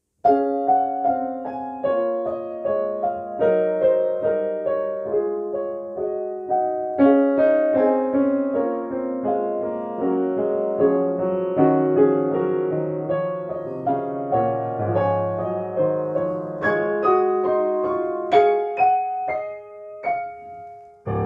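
A 1937 Bechstein Model 8 upright piano being played with both hands: a flowing piece of many overlapping notes with a lush tone. The piano has been freshly regulated and voiced after a bridge repair. The playing dies away shortly before the end.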